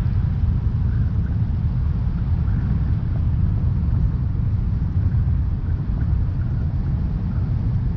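Steady low rumble of a car being driven: engine and road noise.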